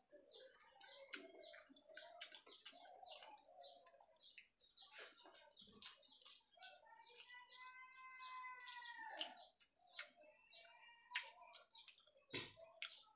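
Faint eating sounds as food is taken with the fingers from a steel plate and chewed: small clicks and smacks throughout. Small birds chirp in the background, and a drawn-out high call rises and falls for about three seconds in the middle.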